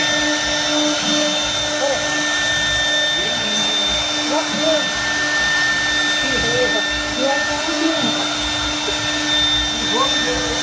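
Two HSD spindles of a double-head CNC wood router running with a steady high whine as their bits cut grooves in hardwood beams, with a continuous cutting hiss.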